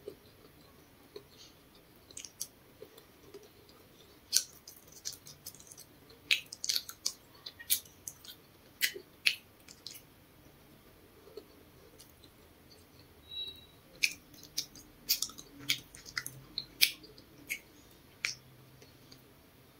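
Close-up eating sounds of a person chewing grilled potato cakes: irregular sharp wet mouth clicks and lip smacks, coming in clusters.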